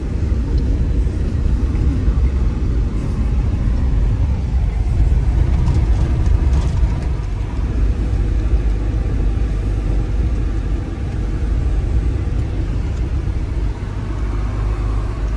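A car driving at steady speed, heard from inside the cabin: a continuous low rumble of engine and tyre noise.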